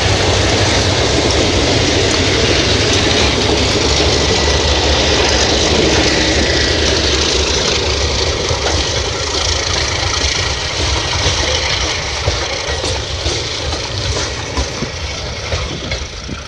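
Diesel freight locomotives, an MLW RS-18 leading, running past close by with a loud steady engine drone. The drone fades after about eight seconds as tank cars roll by, with sharp clicks from the wheels on the rails near the end.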